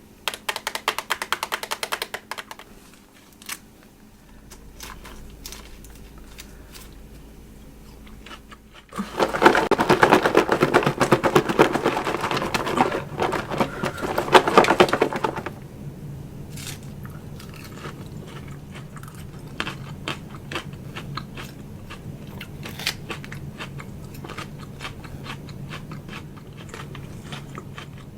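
Close-miked eating of a chicken salad: crisp crunching and chewing of lettuce with scraping and rustling, loudest in a dense stretch about a third of the way in. A steady low hum lies under the quieter chewing in the second half.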